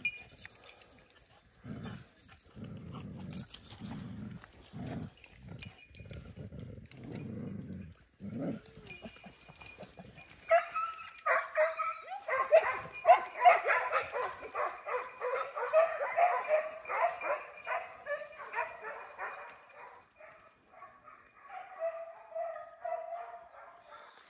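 A run of low, muffled thuds for the first several seconds. Then, about ten seconds in, a pack of hunting hounds starts barking and baying loudly in chorus, falls off near twenty seconds, and keeps on more faintly near the end.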